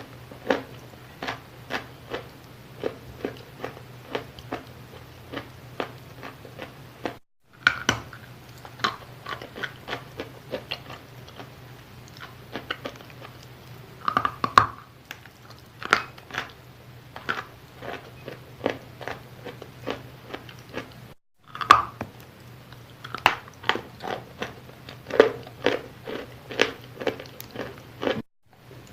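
Wet chalk being bitten and chewed close to the microphone: a steady run of sharp, moist crunches, roughly one or two a second. The sound cuts out briefly three times.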